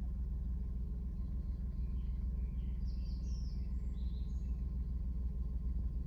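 Steady low rumble of a vehicle moving slowly along a dirt forest track, with a series of short bird chirps in the middle.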